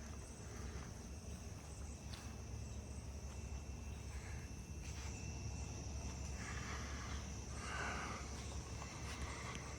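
Outdoor ambience: a steady, high insect chirring over a low rumble, with a few soft rustles about two-thirds of the way in.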